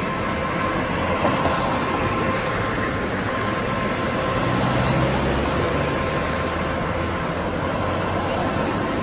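Steady street noise with vehicle engines running, and a faint steady whine on top; a low rumble swells about five seconds in.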